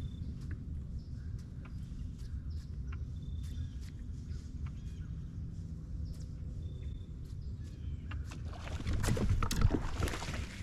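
Steady low rumble of wind and water around a fishing kayak, with faint ticks, then a burst of splashing about nine seconds in: a big bass blowing up on a topwater frog and not getting hooked.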